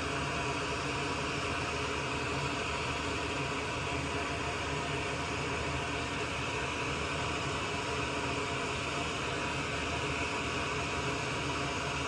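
Steady, even airy hiss of a small blower running on the repair bench, with no breaks or knocks.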